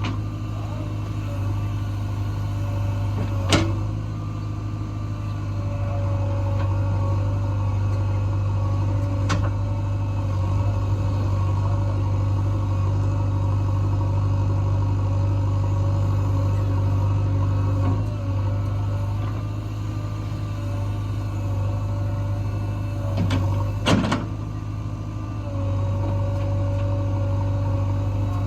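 Heavy diesel engine running at a steady speed, with a few sharp clanks, the loudest pair near the end.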